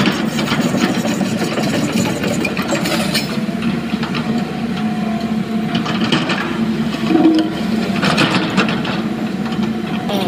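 Large Sany crawler excavator's diesel engine running steadily under load, with the steel bucket scraping and dragging across broken rock on the quarry floor.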